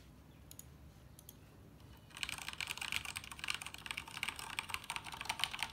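Ducky 2087S mechanical keyboard with Cherry MX Red switches being typed on: a few isolated keystrokes, then fast continuous typing from about two seconds in.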